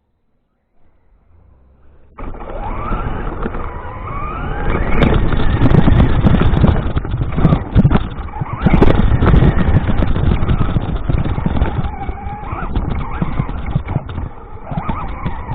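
RC car driving: its motor whines, rising and falling in pitch with the throttle, over loud rough running noise. It starts suddenly about two seconds in.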